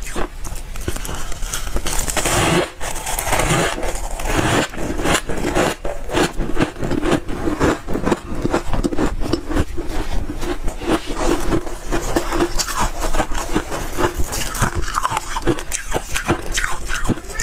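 Soft freezer frost crunching as it is chewed: a dense, steady run of crisp crunches, several a second.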